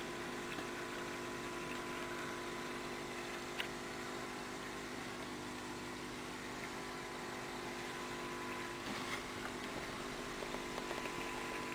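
Steady electric hum of an aquarium filter pump, with a constant hiss. There is one sharp click about three and a half seconds in, and a few faint ticks near the end.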